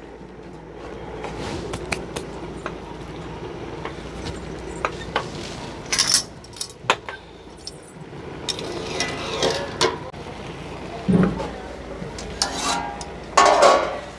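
Metal cookware clinking a few times as a lid is handled on a kadai of Maggi noodles cooking in water.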